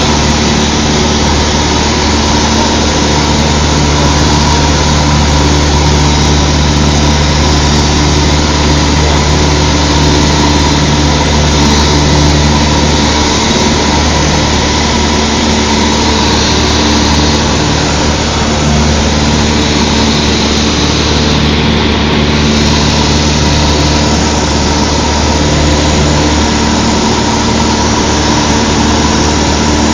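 Cessna 152's four-cylinder Lycoming O-235 engine and propeller running steadily in flight, a loud unchanging drone heard from inside the cabin.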